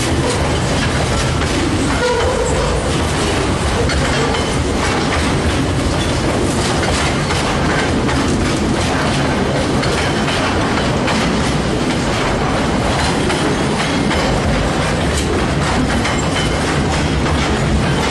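Freight train of container flat wagons rolling past at close range, steel wheels clicking over the rail joints amid a steady, loud running noise.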